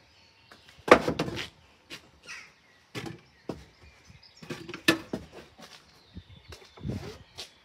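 Irregular metal clanks and knocks from the footplate of a steam roller being worked on, with the loudest cluster about a second in and more scattered through.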